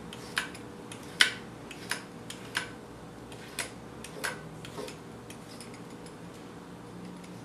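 Vegetable peeler stripping asparagus stalks on a wooden cutting board, a short sharp scrape or click with each stroke, about one a second. The strokes stop about five seconds in.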